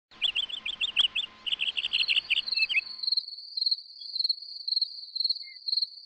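Crickets chirping: a fast run of high chirps that stops about three seconds in, and a steady, high pulsing trill that carries on.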